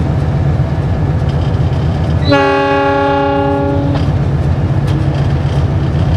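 Locomotive horn of a CC 206 diesel-electric locomotive heard from inside the cab: one steady blast about a second and a half long, sounded as the train approaches a level crossing. The locomotive's diesel engine runs with a steady low rumble underneath.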